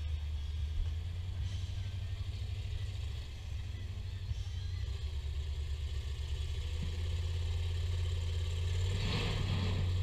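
Rock crawler's engine running with a steady low rumble, growing a little louder toward the end, with a rougher burst of noise about nine seconds in.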